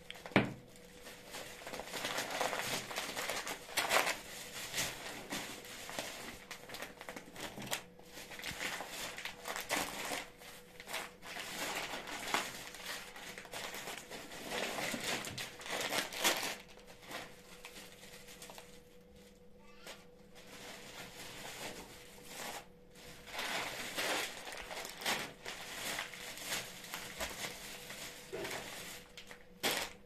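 Thin plastic carrier bags and plastic food packets rustling and crinkling irregularly as groceries are lifted out and set on a counter. A sharp knock about half a second in as a jar is put down is the loudest sound, and the rustling eases off briefly past the middle.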